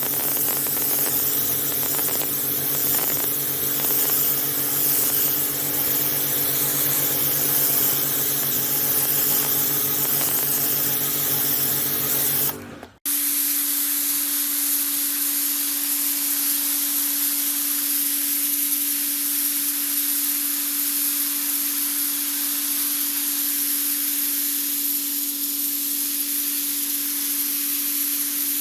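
Pressure washer running and spraying: a steady hiss of the water jet over the machine's steady hum. It cuts out briefly about 13 seconds in and resumes with a single, steadier hum tone.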